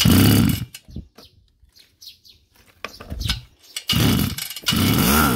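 Kioritz two-stroke brush-cutter engine being pull-started: the recoil starter rope is yanked three times, at the start, about four seconds in and just after, each pull a short burst of cranking with quiet between.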